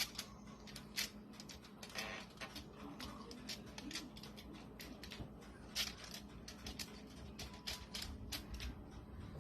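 Irregular soft clicks and taps of hands and kitchen utensils handling minced chicken mixture, over a faint steady low hum.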